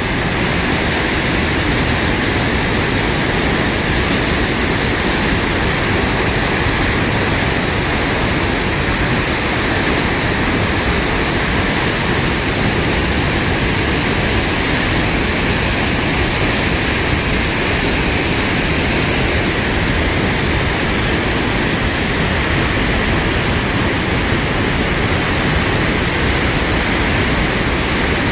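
Large waterfall, a heavy torrent plunging into a misty gorge, making a loud, steady, unbroken rushing of water.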